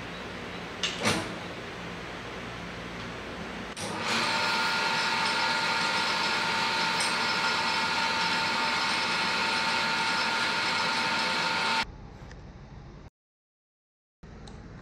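Shop hum with a couple of clicks, then an electric machine motor that switches on about four seconds in, runs steadily with a high whine and cuts off near the end.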